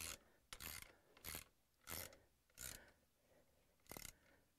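Ratchet wrench being swung back and forth to tighten a bolt on a tow bar arm: faint, quick rasping clicks of the ratchet, about one every two-thirds of a second, then one more near the end.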